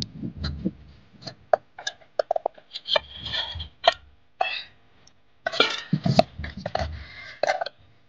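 A metal ladle stirring a watery flour mixture in an aluminium pot, clinking and knocking against the pot again and again, with two longer stretches of sloshing, about three seconds in and again in the second half.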